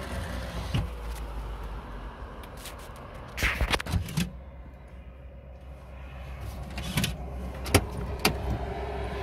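Low steady rumble of a stopped vehicle, with a few sharp knocks and clicks, the loudest a short cluster about three and a half seconds in.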